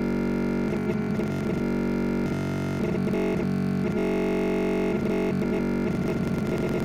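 Background music with plucked, guitar-like tones, cutting off abruptly at the end.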